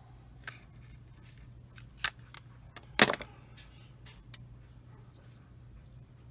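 A few light clicks and knocks of small plastic model parts and a plastic holder being handled and set down on a workbench mat, the loudest about three seconds in. A steady low hum runs beneath.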